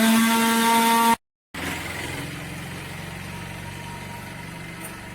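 Chainsaw revving up, its pitch climbing to a steady high whine, then cut off abruptly about a second in. After a short silence, a small engine idles steadily and much more quietly.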